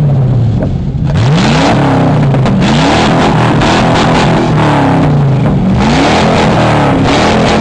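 Lincoln Town Car demolition derby car's engine being revved hard several times, the pitch climbing and dropping back between blips over a loud, raw exhaust roar.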